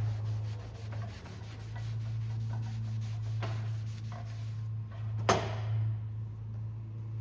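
Rubbing and scraping on an oar shaft, typical of abrading the bonding area, with two sharp knocks, the louder one about five seconds in, over a steady low hum.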